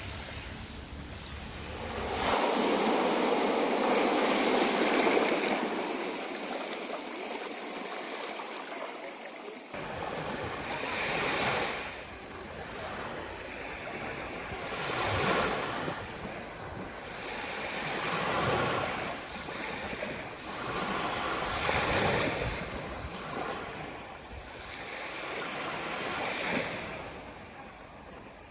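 Sea surf: waves breaking and washing on a shore, swelling and ebbing every three to four seconds. Between about two and ten seconds in, a louder, steadier rush of surf starts and stops abruptly.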